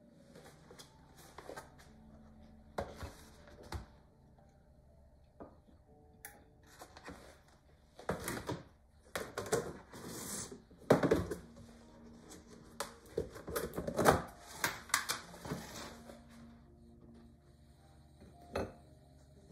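Cookies being handled in a tin and set on a ceramic plate: a run of rustles, scrapes and light knocks, busiest in the middle, with one sharper knock near the end.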